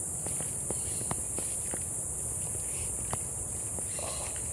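Footsteps on a jungle trail, a scatter of light ticks and snaps, over a steady high-pitched drone of insects.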